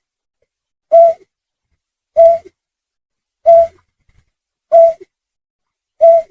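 Snipe call played as a hunting lure: five short, identical calls, evenly spaced a little over a second apart.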